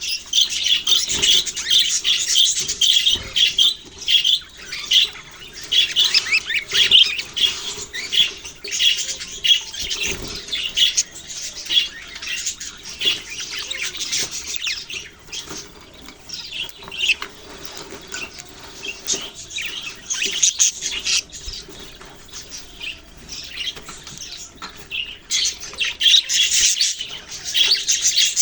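A flock of budgerigars chirping, many short high calls overlapping without a break, busiest in the first half and again near the end.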